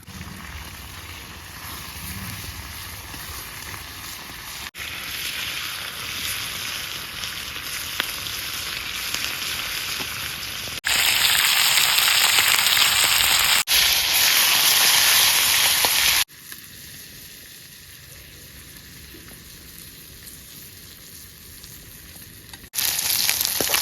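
Marinated chicken pieces frying in hot oil in a pan, a steady sizzle. Its loudness jumps up and down at several abrupt cuts, and it is loudest a little before the middle and again near the end.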